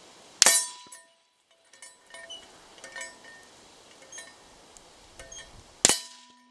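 Two bolt-action rifle shots about five and a half seconds apart, each followed by a short ringing tone from a hit steel plate, with light metallic clicks between them.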